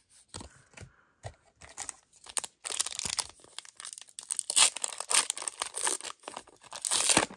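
Foil trading-card booster pack crinkling and tearing as it is pulled open by hand, a dense crackle starting about two and a half seconds in, after a few faint clicks.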